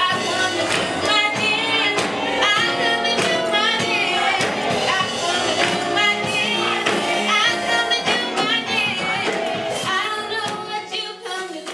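Gospel praise and worship team singing with band accompaniment and a regular percussion beat, the sound dropping away near the end.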